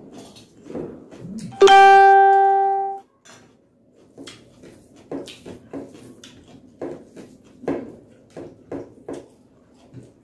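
Close-up eating sounds: chewing, lip smacks and fingers mixing rice on a plate, heard as a string of short, soft clicks and smacks. About two seconds in, a single loud ringing note with a clear pitch sounds for just over a second, then stops.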